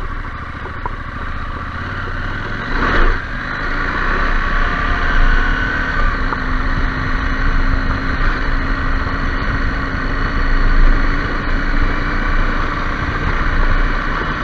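KTM 790 Adventure R's parallel-twin engine pulling away on a gravel track and picking up speed to about 40 km/h, louder from about three seconds in.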